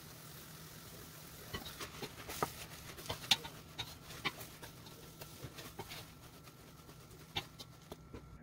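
Wooden spatula clicking and scraping against a stainless steel pan as rice noodles and vegetables are tossed, irregular knocks over a faint steady hum.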